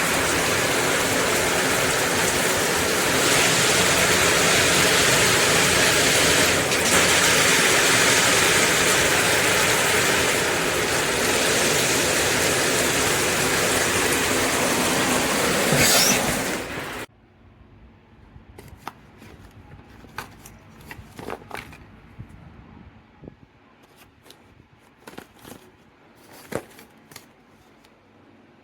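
Dual shower head spraying water in a steady rushing hiss that stops suddenly about seventeen seconds in as the water is shut off. After that come scattered small drips and clicks.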